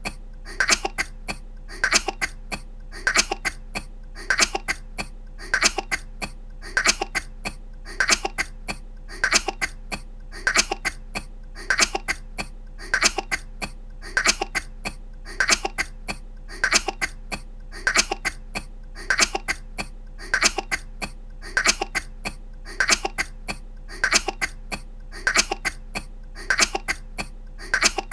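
A woman coughing in short fits, the same cough looped over and over about once a second, with a faint steady hum under it.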